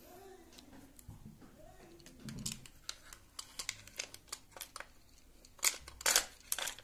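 Metal clicks and scrapes of an Impala Plus semi-automatic shotgun being reassembled by hand, as the bolt assembly, receiver and barrel are handled and fitted together. The clicks start a couple of seconds in and grow louder and sharper near the end.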